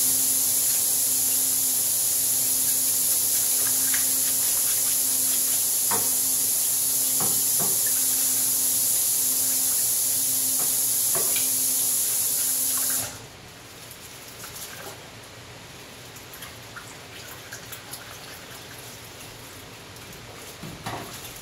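A steady rushing hiss with a low hum cuts off suddenly about thirteen seconds in. Throughout are scattered knocks and clinks as a dental instrument cassette is brushed under water in a stainless steel sink.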